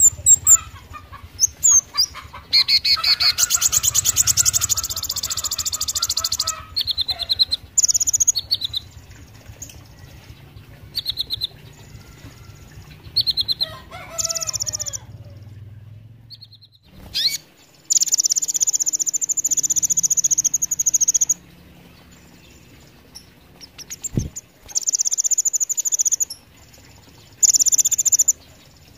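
Male kolibri ninja sunbird singing: bursts of high-pitched, sharp, rapidly pulsed trills lasting a few seconds each, broken by short chirps and pauses.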